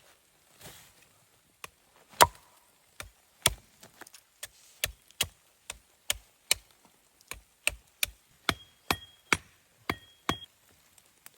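An axe chopping wood in a steady run of sharp strikes, about two a second, one early strike louder than the rest. Several strikes near the end give a short metallic ring.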